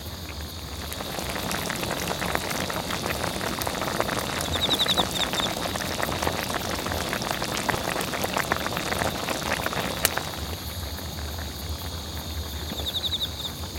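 Gopchang jeongol (beef tripe hot pot) bubbling at a rolling boil in a wide pan: a dense popping crackle that swells about a second in and stops about ten seconds in.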